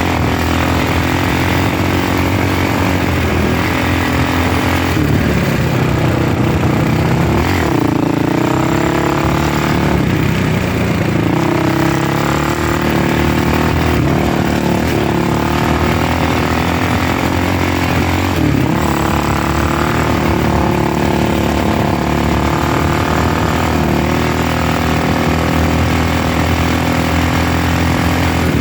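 A vehicle's engine running steadily while driving, its pitch climbing several times as it revs up and then holding.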